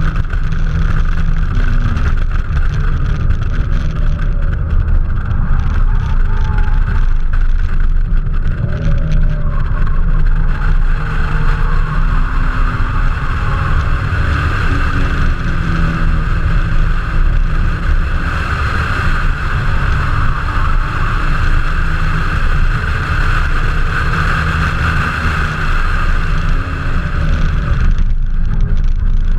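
Toyota 7M-GE straight-six in a 1984 Celica Supra running hard at speed, with heavy wind and road noise over the engine note. The higher part of the sound drops away briefly near the end.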